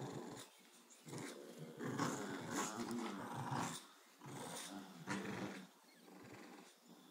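A bulldog and a Boston terrier growling in play during a tug of war, in rough bursts of a second or two, quieter near the end.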